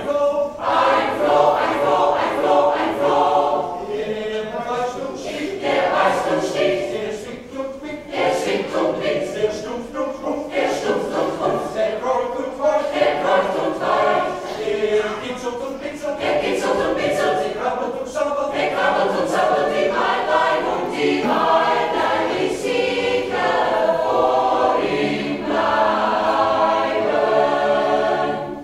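Mixed choir of men and women singing together, breaking off right at the end.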